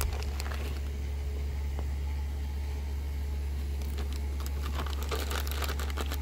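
Crinkling and rustling from handling food and its packaging while cheese is laid thickly onto bread, busiest in the last couple of seconds, over a steady low hum.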